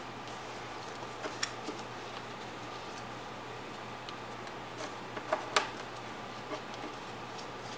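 Origami paper being folded and creased by hand: a few short, sharp crackles and taps, some about a second in and a louder cluster around five seconds in, over a steady background hiss and hum.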